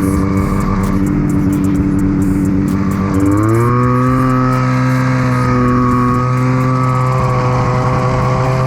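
Ski-Doo snowmobile engine running at speed on the trail, its pitch rising about three seconds in as the throttle opens, then holding steady at the higher speed.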